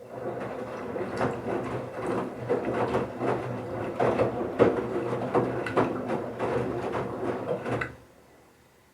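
Bauknecht Super Eco 7615 washing machine turning its drum of wet towels during the wash: a steady motor hum with a continual irregular clatter of tumbling laundry. It stops abruptly about eight seconds in as the drum pauses.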